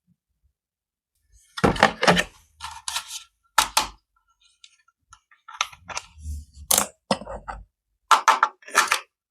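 Irregular crackles, clicks and knocks of plastic packaging and a toy RC car being handled, starting about a second and a half in, with a couple of short dull thumps.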